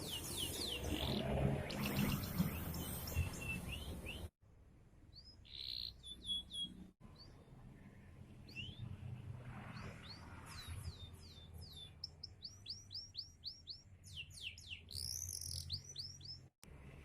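Domestic canary singing: rapid runs of high, downward-sweeping notes and trills. The song breaks off abruptly about four seconds in, again about seven seconds in, and near the end.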